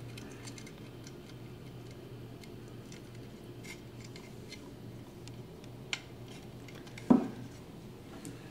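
Hands handling a loudspeaker woofer and its lead wires: faint scattered clicks and rustles, a sharper click about six seconds in and a single loud thump just after seven seconds, over a low steady hum.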